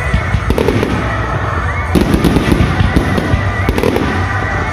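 Fireworks finale: a rapid-fire barrage of shells and spark fountains, with dense, continuous bangs and crackle. The bangs grow louder about two seconds in.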